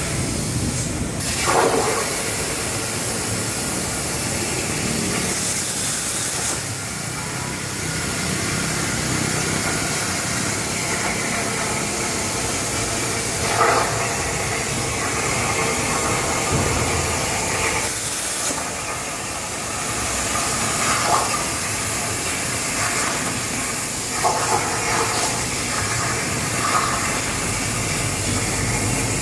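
CNC plasma cutter's torch hissing steadily as it cuts thin sheet metal, with a few brief louder surges.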